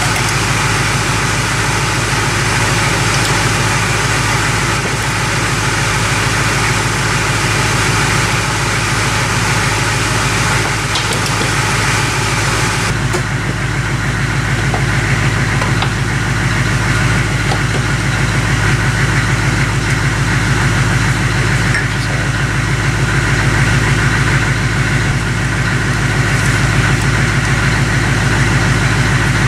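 A machine running steadily: a continuous low drone with a fast, even pulse.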